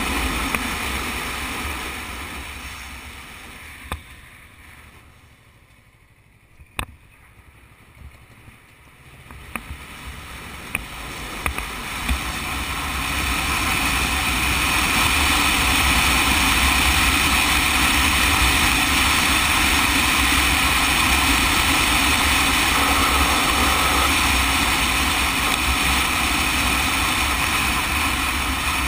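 Riding a sport motorcycle, heard from a bike-mounted camera: wind rushing over the microphone along with the running engine. A few seconds in, the sound drops low for several seconds, with a few sharp clicks. It then builds back up into a steady, loud rush at road speed.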